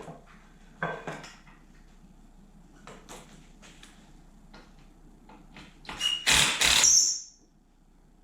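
Light clicks and knocks of handling parts, then about six seconds in a cordless impact driver runs briefly in one loud burst of about a second with a whine, driving a screw into the bench's wood.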